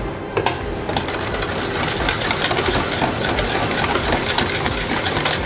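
Wire whisk beating a runny banana muffin mixture in a stainless steel bowl: a rapid, steady clatter of the wires clicking and scraping against the metal bowl.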